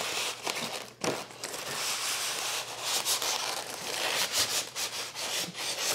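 Styrofoam packing block sliding out of a cardboard box, foam and cardboard rubbing and scraping with small crackles.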